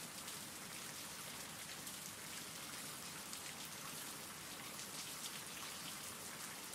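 Steady rain falling, an even hiss of many small drops with fine ticks of individual drops, low in level.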